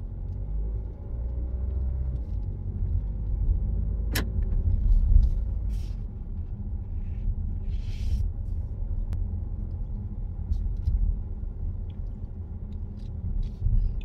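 Car driving at low speed, heard from inside the cabin: a steady low rumble of engine and tyres on the road, with one sharp click about four seconds in.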